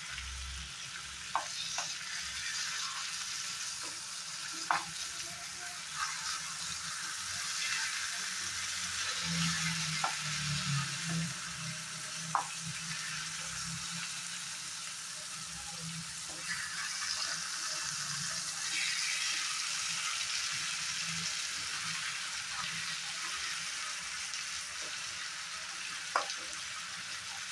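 Fish pieces sizzling steadily in mustard oil in a frying pan, with a metal spatula scraping and clicking against the pan now and then as the pieces are turned.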